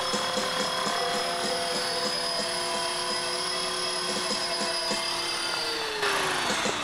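Electric Blade 400 RC helicopter flying on a single counterweighted main rotor blade: steady high motor and gear whine with rotor noise. The pitch sags a little about five seconds in, and the sound changes abruptly near the end.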